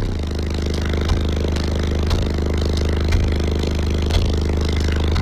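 Car audio system of nine Resilient Sounds Gold 10-inch subwoofers on about 10,000 watts, playing deep sustained bass notes, heard from inside the car's cabin. A sharp hit lands about once a second.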